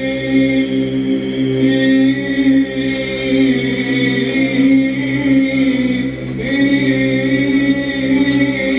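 Small group of men singing Orthodox church chant a cappella: long held notes over a steady low drone, shifting to new notes about six seconds in.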